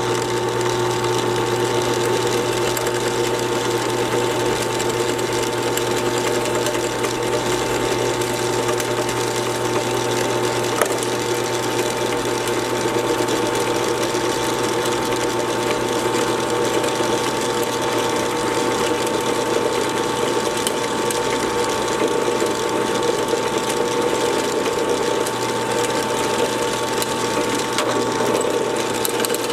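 Drill press running steadily as it cuts a keyway into a metal automotive pulley.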